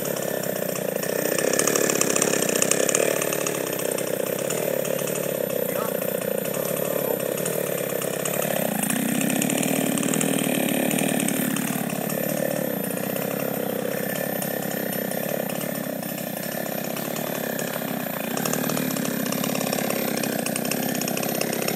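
Two-stroke chainsaw running steadily and cutting into a felled tree trunk.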